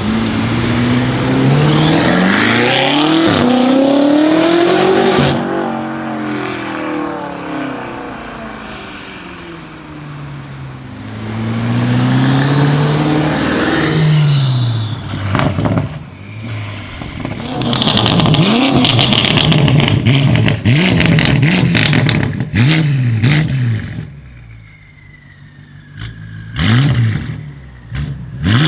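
Decatted BMW M5 F90's twin-turbo V8 through an Akrapovic exhaust, accelerating hard twice with its pitch climbing and falling away. Then comes a long run of loud exhaust crackles and pops, and two short sharp revs near the end.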